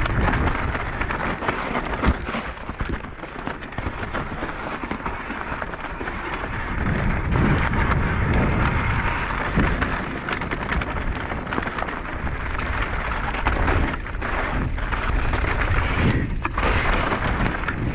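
Mountain bike riding fast down a dry, rocky dirt trail: tyres rolling over loose stones and gravel, with many knocks and rattles from the bike, and wind rumbling on the camera microphone.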